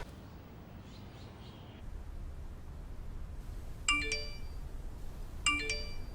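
A short multi-note chime sounds twice, about a second and a half apart, each time a bright ding followed by a few lower notes, over a faint low background rumble.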